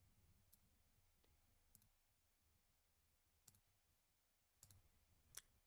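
Near silence broken by a handful of faint, scattered computer mouse clicks.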